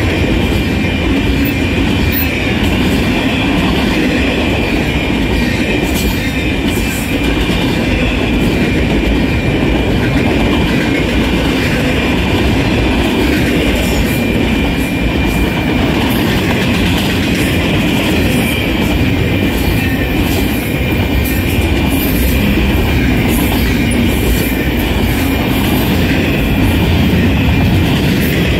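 Double-stack intermodal container train passing close by: the steady, unbroken rumble and rattle of the well cars' wheels on the rails, with a thin, steady high tone running through it.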